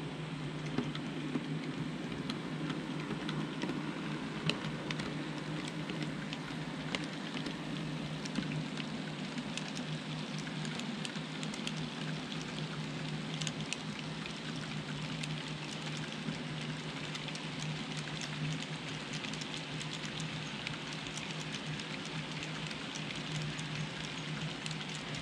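Model coal train, led by a pair of model EMD F3 locomotives, rolling past on the layout's track: a dense patter of small wheel clicks and rolling rattle over a steady low hum.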